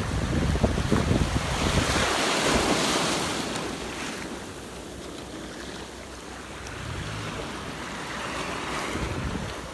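Small waves washing up and hissing on a sandy, rocky shore, swelling twice, with wind buffeting the microphone over the first couple of seconds.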